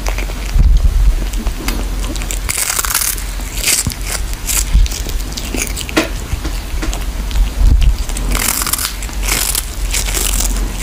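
A cat chewing and crunching on a small fish, with irregular crunches every second or so.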